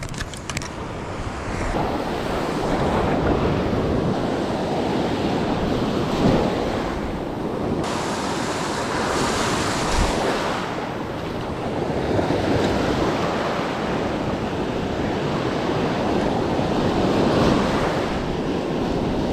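Ocean surf breaking and washing up a beach, swelling and easing every few seconds, with wind gusting on the microphone.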